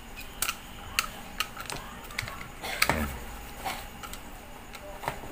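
Short, sharp plastic clicks and taps, about half a dozen at irregular intervals with the strongest about three seconds in, as the sliding switch of a Stanley STGS8100 angle grinder is pushed and seated back into the grinder's plastic motor housing.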